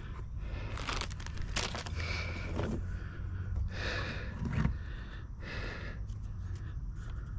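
Hands handling an RC helicopter and a Velcro strap inside a foam-lined aluminium carrying case: a string of short rustling, scraping and tearing sounds about a second apart.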